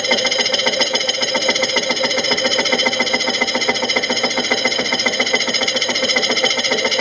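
A 5-inch, 3/32-inch-thick slitting saw turning at 397 RPM in the vertical head of a Trans World Steel VHM-728 milling machine, cutting metal under slow manual feed with a steady, rapid, noisy chatter. The cut is light, about five to ten thousandths per pass.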